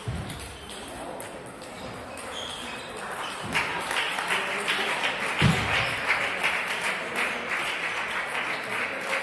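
Spectators clapping and shouting, swelling about three and a half seconds in, with a few low thumps.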